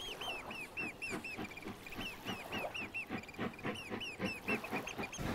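A bird calling in a fast, steady series of short, shrill, arched whistled notes, about four or five a second.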